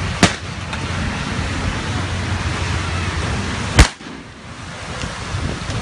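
Outdoor street-protest ambience: a steady rush of wind and distant crowd noise, broken by two sharp bangs about three and a half seconds apart, the second the louder.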